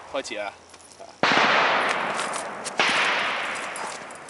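Two shots from a Glock 17 9mm semi-automatic pistol, about a second and a half apart, each ringing out with a long fading echo.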